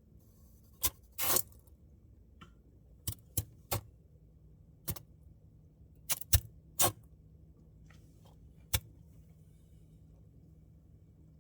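Samsung Bespoke refrigerator making about a dozen sharp, irregular clicks and ticks, with a short crackle about a second in, over a faint low hum.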